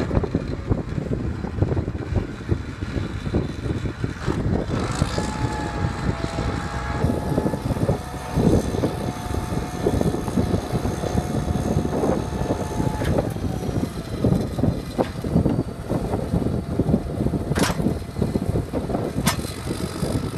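1970 John Deere 644 wheel loader's 404 cu in turbocharged diesel running, with a steady whine from about five seconds in to about fourteen seconds in as the hydraulics raise the loader arms and bucket. Two sharp clanks come near the end.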